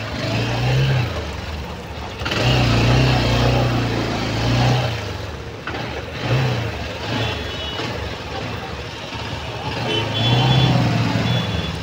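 Motorbike ride through city traffic: the bike's engine running, its pitch rising and falling in swells as it speeds up and slows, over the steady noise of surrounding cars and trucks. A few short high beeps come in the later seconds.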